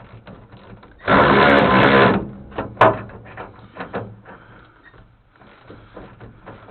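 Cordless power tool run in one burst of about a second, turning a bolt on the old truck. Sharp metallic clicks and clinks of tool handling follow.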